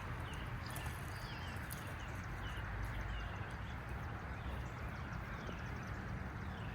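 An animal calling with short, falling chirps repeated about one or two a second, over a steady low outdoor rumble.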